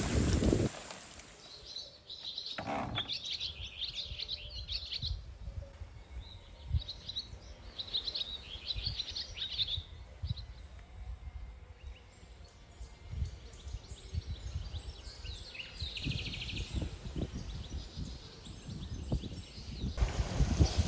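Small birds chirping in clusters of rapid high notes, several in the first half and another about 16 seconds in, over a faint low rumble.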